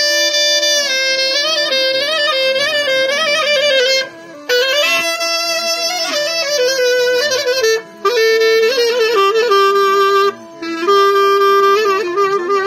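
Ornamented folk melody on a reed wind instrument, played in phrases with short breaks about 4, 8 and 10.5 seconds in, over a steady held drone note that carries on through the breaks.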